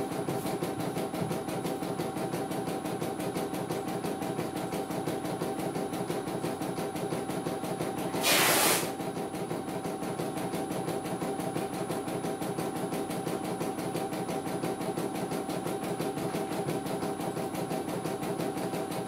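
CNY E900 computerized embroidery machine stitching a design, its needle running in a rapid, even rhythm over a steady motor hum. About eight seconds in, a brief, louder rasping noise lasts about half a second.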